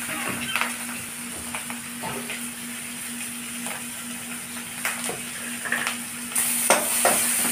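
Fish roe frying in oil in a pan: a steady sizzle with scattered clicks and scrapes of a spoon stirring. The sizzle grows louder about six and a half seconds in.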